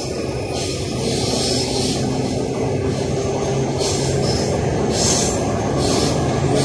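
Interior of a moving AS-02 metro train: a steady hum and rumble of the train running on its rails, with hissing wheel noise that swells and fades every second or so.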